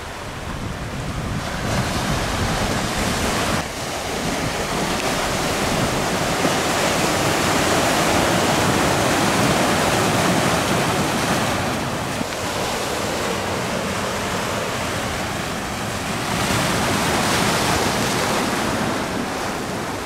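Ocean surf breaking and washing over a beach of round cobblestones, a continuous rushing that swells and eases with the waves. Wind buffets the microphone as a low rumble.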